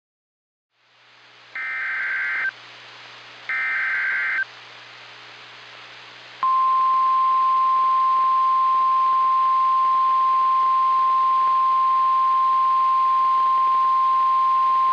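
NOAA Weather Radio alert over receiver hiss: two roughly one-second bursts of SAME digital header data, each a warbling two-tone buzz, then, a couple of seconds later, the steady 1050 Hz Warning Alarm Tone. The tone comes on about six seconds in and is still sounding at the end. It announces a new tornado warning.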